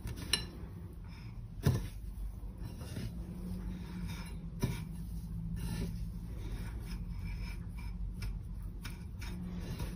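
Dry breadcrumbs rustling and rubbing as a hand rolls a potato-and-egg kebab in them on a plate, with a few soft taps and a faint steady low hum underneath.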